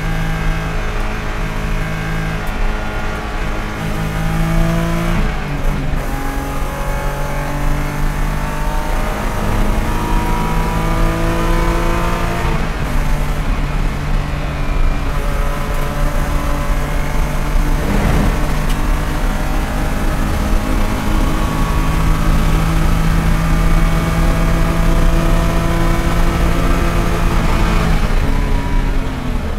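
BMW E90 330 race car's inline-six engine heard from inside the cockpit at full throttle near the top of the rev range. Its note climbs through the gears, with shifts about five and twelve seconds in. Near the end the throttle comes off and the note falls away.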